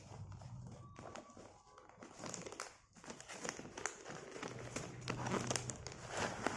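Packaging being handled and opened by hand: crinkling and rustling with many small clicks and taps, getting busier from about two seconds in.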